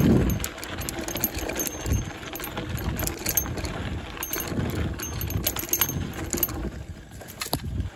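Mountain bike riding over a rocky dirt singletrack: tyres crunching on loose gravel with frequent rattling clicks from the bike, over a low uneven rumble. The level drops just before the end.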